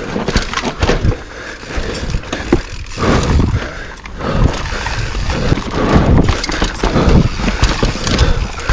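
Orange Stage 6 mountain bike riding down a slick, wet trail: tyres rolling over mud and rock, with frequent knocks and rattles from the bike.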